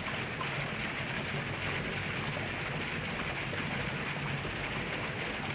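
A 354-plate HHO (oxyhydrogen) electrolysis generator running at full output, about 57 amps: a steady, rain-like fizz of gas bubbling through water over a low, steady hum.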